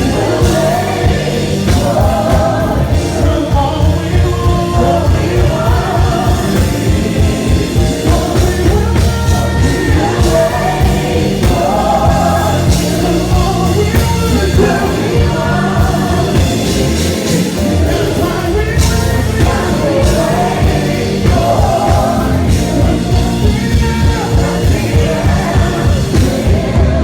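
Live gospel worship music: a band playing a slow, steady beat with voices singing a melody over it.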